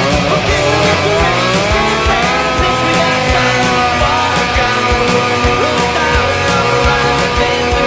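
Rock music soundtrack with distorted guitars over a steady drum beat.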